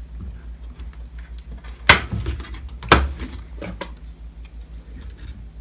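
Two sharp clicks about a second apart as hard computer parts are handled, with a few fainter ticks over a steady low hum.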